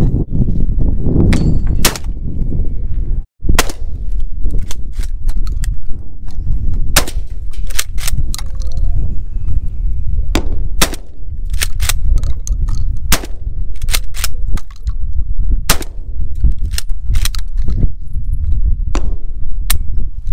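Gunfire: roughly thirty loud, sharp shots at irregular intervals, sometimes two or three in quick succession, over a steady low rumble.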